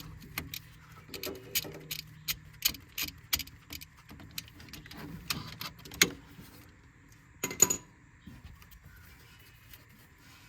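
Metal hand tool on the bolt of a Hyundai 2.4 crankshaft position sensor, working it loose: a string of sharp, irregular metallic clicks and clinks, the two loudest about six and seven and a half seconds in.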